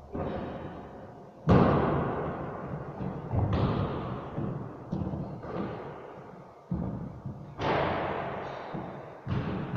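Basketball impacts ringing through a large echoing gym: the ball thudding on the floor and hitting the backboard and rim, about seven sharp hits, each followed by a long echo. The loudest comes about one and a half seconds in.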